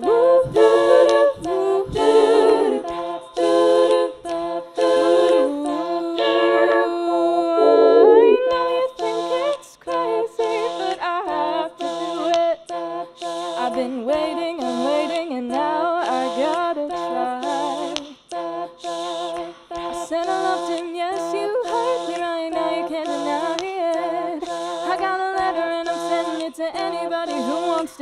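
A woman singing wordless a cappella vocal harmonies, several voice lines sounding together, over a steady pulse of short hissy beats.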